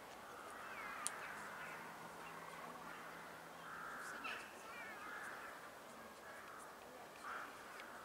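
Hooded crow giving a few short caws, with faint chirping of other small birds and one sharp click about a second in.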